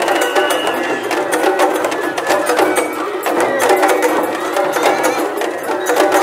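Japanese festival music (matsuri-bayashi) from a festival float: sharp drum strikes and a high held flute note that ends about a second in, over crowd voices.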